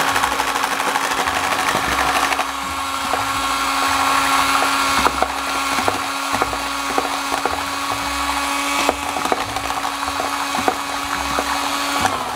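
Electric hand mixer running at a steady pitch, its beaters working flour into batter in a glass bowl, with scattered clicks. It gets a little quieter about two seconds in and switches off just before the end.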